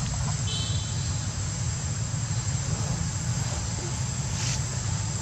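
Continuous high-pitched insect drone of crickets or cicadas over a steady low rumble, with a short high squeak about half a second in.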